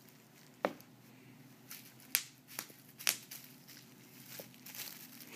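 Plastic bubble wrap crinkling and snapping under a cat's paws as it moves about on it, with several sharp snaps spread over a few seconds, the loudest a little over two and three seconds in, and a patch of soft crinkling near the end.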